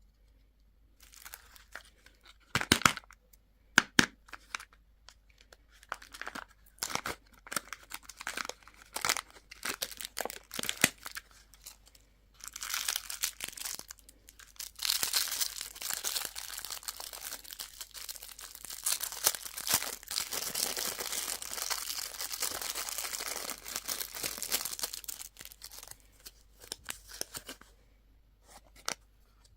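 Candy packaging wrapper being torn open and crinkled by hand. First come scattered sharp crackles, then about halfway through a dense stretch of continuous crinkling lasting around ten seconds.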